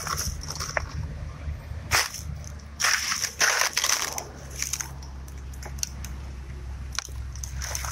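Dry leaf litter and grass crunching and rustling in irregular bursts, as someone steps and pushes through it, with a sharp click about seven seconds in.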